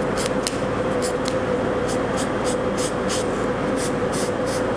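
Marker pen drawn across fabric in a quick run of short, light scratches, about three a second, over a steady background hum with a faint constant tone.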